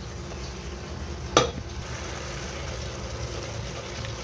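Onion-tomato masala paste sizzling in a nonstick pan as it is fried down, with a spatula stirring and scraping through it. One sharp knock, the loudest sound, comes about one and a half seconds in.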